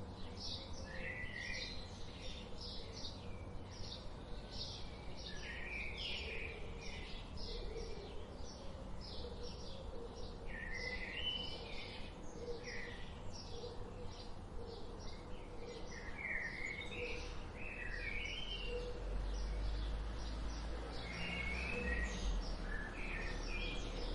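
Several birds chirping and singing in woodland: rapid short chirps over and over, with warbling phrases every few seconds. Underneath is a low rumble that grows louder near the end.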